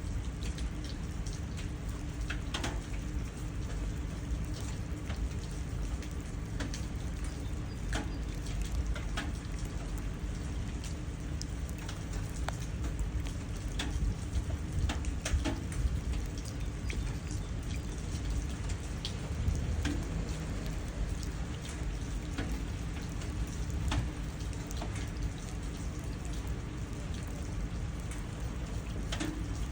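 Rain falling and splashing into puddles: a steady patter with scattered single drops ticking sharply, over a steady low rumble.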